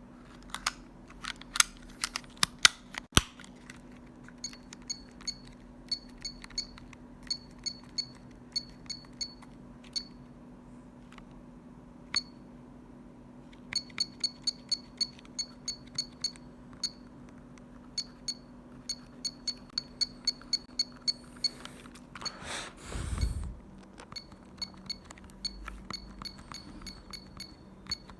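Telecom Italia Tech New Master telephone keypad beeping: a short high beep with each button press, in quick runs of presses, with a few louder clicks near the start. A brief rustle of handling comes about three quarters of the way through, over a steady low hum.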